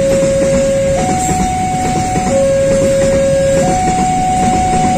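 Two-tone electronic warning alarm that alternates between a low and a higher pitch, each held for a second or two. Under it runs the steady rumble of a passing train.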